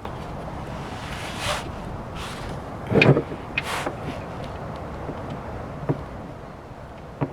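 Tool and hand noises from removing a gearbox drain bolt: a few short scraping rasps, a loud knock about three seconds in, and a couple of light clicks later.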